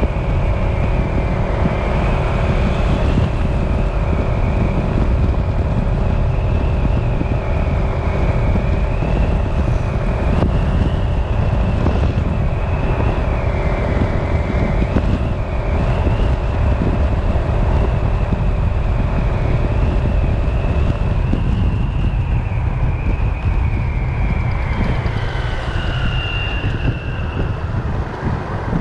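City road traffic with heavy wind rumble on the microphone, and a high whine that wavers slightly above it before fading near the end.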